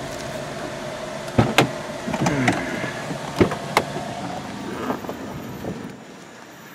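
Car idling with a steady hum while a car door is worked and someone climbs out: several sharp clicks and knocks and a short creak. The hum drops away about six seconds in.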